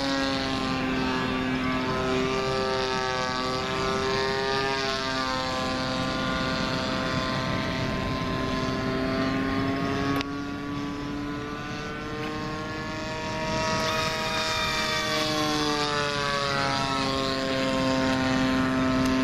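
Lazy Ace radio-control model airplane's small engine and propeller running in flight overhead, one droning note whose pitch slides down and back up as it passes to and fro. About ten seconds in it drops suddenly quieter, then builds back up from about fourteen seconds.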